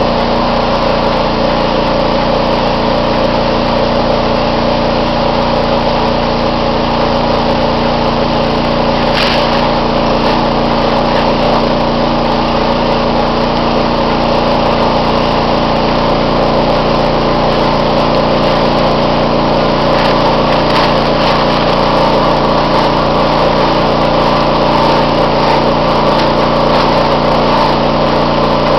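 Dust-collection blower running, pushing sawdust down a fabric chute into a bulk bag: a loud, steady machine drone with several unchanging hums.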